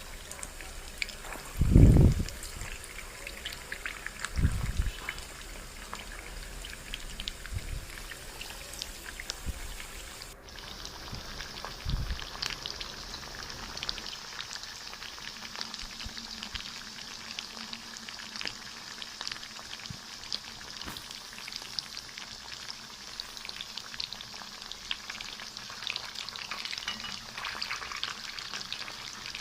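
Marinated chicken pieces deep-frying in oil over a low flame: a steady sizzle full of fine crackles. A few dull low thumps come in the first twelve seconds, the loudest about two seconds in, and the sizzle changes abruptly about ten seconds in.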